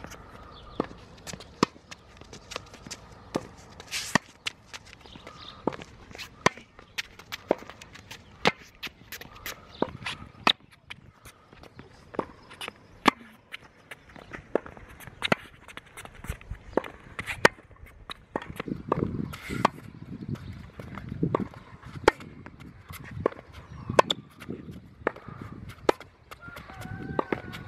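Tennis ball struck with a racket and bouncing on a hard court during a baseline rally: a steady run of sharp pops of ball on strings and bounces, with the player's footsteps on the court between them.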